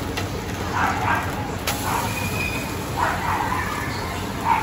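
An egg-and-oyster omelette sizzling on a flat-top griddle, with steel spatulas clicking and scraping against it as it is folded. Several short high-pitched calls ring out over it, about a second in, at two and three seconds, and loudest just before the end.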